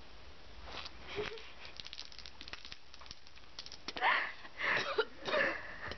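A person spluttering and coughing out a mouthful of Coke foaming up with chewed mints, after faint crackling: several loud bursts from about four seconds in.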